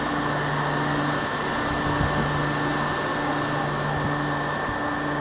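Steady mechanical hum and hiss, like a fan or blower, with a low tone that pulses on and off about every one and a half seconds and a constant thin whine above it.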